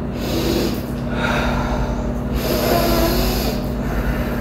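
A woman breathing audibly, in and out, about three breaths close to the microphone, the last one longer with a slight voiced edge, over a steady low hum.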